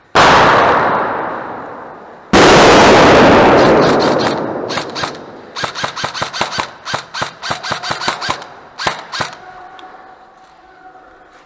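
Two loud blasts, one at the start and one about two seconds later, each ringing out for about two seconds. Then a quick string of sharp airsoft gun shots, a few a second, which stops a couple of seconds before the end.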